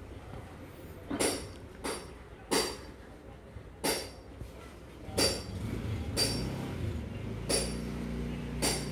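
Sharp metallic clinks, about eight of them at irregular intervals, each ringing briefly at the same high pitches, like light metal being knocked. A faint low hum runs under the second half.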